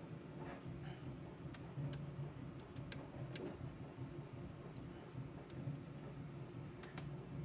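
A handful of light, irregular clicks and ticks as small screws and metal parts are handled and started by hand into a Bambu Lab P1S 3D printer's hot end, over a steady low hum.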